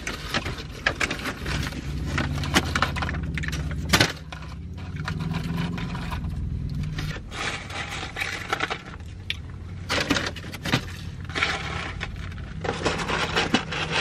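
Paper takeout bag rustling and crinkling as food is pulled out of it, with many irregular crackles. A low hum runs underneath for stretches.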